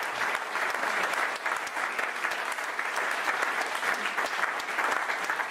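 Audience and cast applauding at a theatre curtain call: many hands clapping together, steady throughout.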